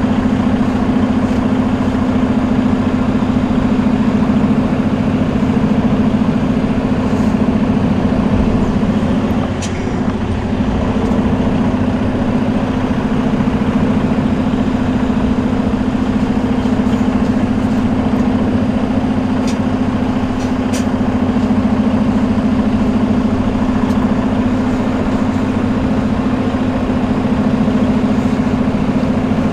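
Freightliner Cascadia semi truck running down the road, a steady engine and road drone heard inside the cab, with a brief dip in level about ten seconds in.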